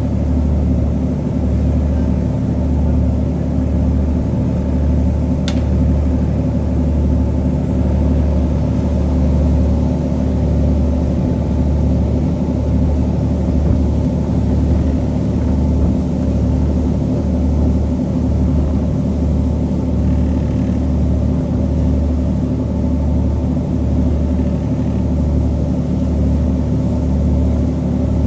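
A boat's engine running steadily, a constant low hum with an even drone above it.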